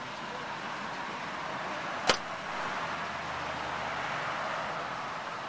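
A Ford F-150 Lightning pickup's door being shut: one sharp slam about two seconds in, over steady background noise.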